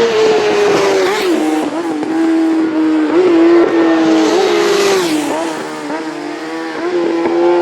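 Road-racing motorcycle engines running hard, their note stepping down and back up several times as gears change. There are two brief rushes of noise, about one and a half and five seconds in.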